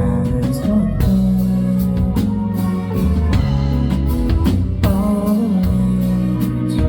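Live band music: drums, bass and guitar playing a steady pop accompaniment.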